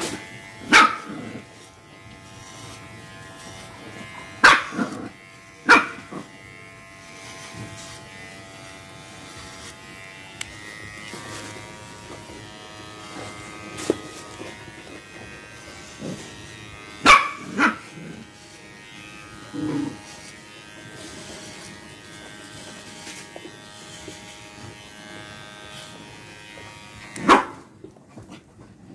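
Electric dog grooming clippers humming steadily while a dog barks sharply several times; the clipper hum cuts off near the end.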